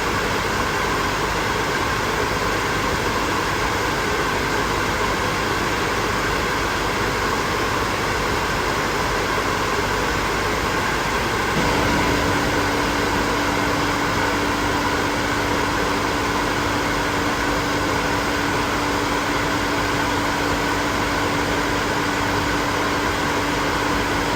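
Hair dryer blowing steadily, a continuous rushing of air from its fan. About halfway through, a steady low hum from the motor joins in and carries on.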